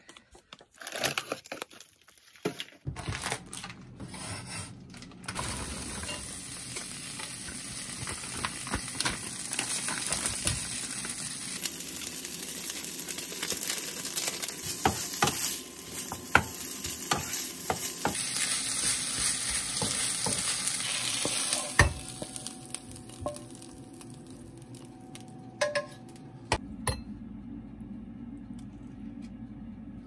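Frozen fried rice sizzling in a nonstick frying pan while a spatula stirs it and scrapes the pan, with scattered clicks. After about twenty seconds the sizzling stops, and a spoon clinks a few times against a ceramic bowl.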